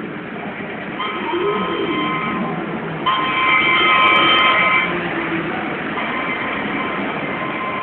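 Model train horn sounding three blasts of about a second and a half each, a chord of several steady tones, the middle blast the loudest, over the steady rumble of model trains running.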